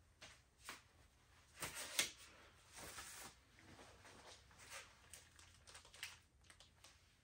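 Faint rustling of a glossy magazine being handled, then light clicks and fumbling of small items in the hands; otherwise near silence.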